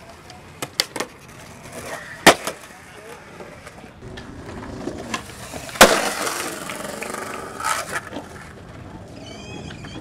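Skateboard wheels rolling on concrete, with sharp clacks of the board hitting the ground. The loudest clack comes about six seconds in and is followed by a couple of seconds of rolling.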